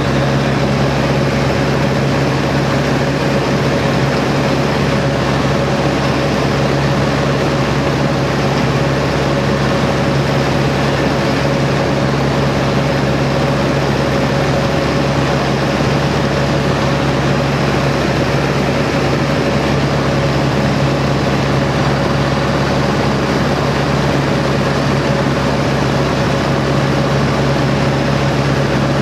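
de Havilland Chipmunk's Gipsy Major four-cylinder inline engine and propeller running steadily in cruise flight, heard from inside the cockpit over a constant rush of airflow.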